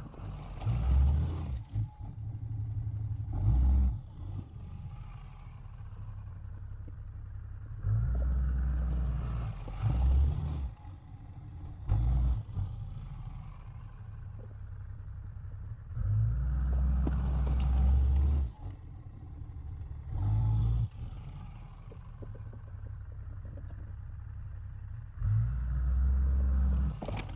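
Dodge Ram 2500 pickup engine working as the truck pushes snow with a plow, surging louder every few seconds under throttle and dropping back to a lower run in between.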